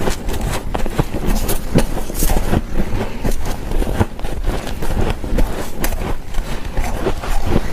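Dry humidifier frost crunching, a dense unbroken run of close crackling crunches.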